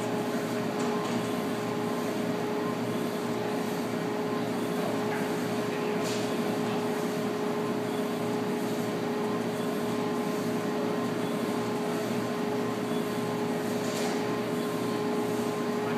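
Steady machine hum with one constant tone from the hydraulic loading rig's power unit, running while the concrete beam is held under load. A couple of faint short ticks come about six seconds in and again near the end.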